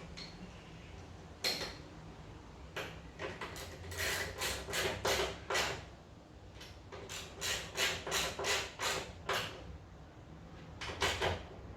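Socket wrench tightening the motorcycle's fuel tank bolts: short clicking strokes, about four a second, in two runs with a pause between.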